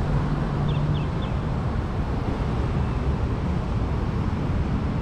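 Steady city traffic noise, a low rumble with no single vehicle standing out, and three faint short high chirps about a second in.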